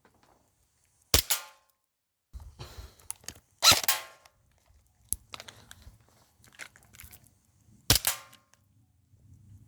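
Airsoft gun firing three single shots a few seconds apart, each a sharp crack with a short ring after it, with rustling and clicking handling noise between shots.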